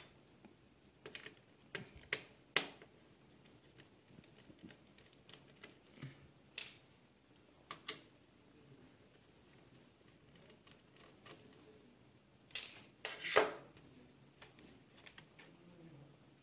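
Scattered small clicks and taps of a screwdriver and fingers on an Acer Aspire laptop's plastic hinge cover as its screws are undone. A louder run of clicks and rattles comes about twelve to thirteen seconds in.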